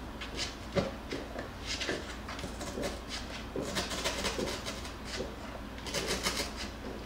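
Jackabee puppies shifting about in a cardboard box: scratchy rustling of paws and bodies on the blanket and cardboard, with a sharp knock about a second in.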